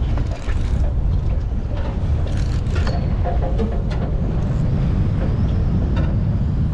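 Low, heavy rumble of wind and boat noise on the open deck of a sportfishing boat at sea, with a few sharp clicks and taps, a cluster of them a little over two seconds in.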